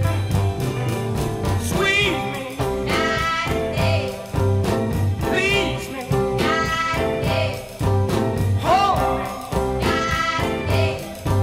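1960s rhythm-and-blues band recording: wavering, held sung notes recurring every second or so over a steady bass line and drums.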